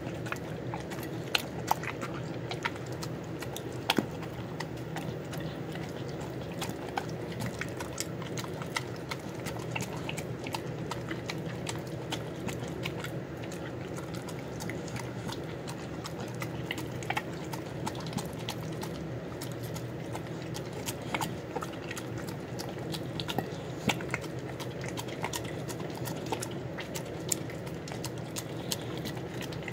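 A dog eating rice and beans off a plate: wet chewing and licking, with frequent short, sharp clicks.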